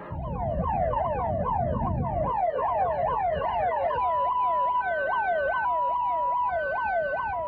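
Ambulance siren sounding a fast yelp, about two and a half sweeps a second, over a low rumble for the first two seconds. About four seconds in, a steady tone joins it, with a higher tone breaking in and out.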